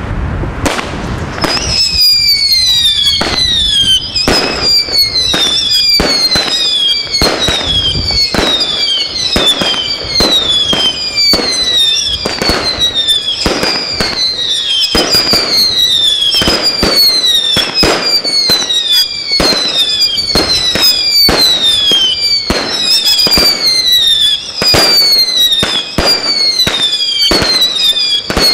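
Royal Fireworks 'Screaming Salute' firework cake firing a long barrage of whistling shots, starting about a second and a half in. Each shot gives a shrill whistle that falls in pitch, about one a second and overlapping, amid many sharp bangs and cracks.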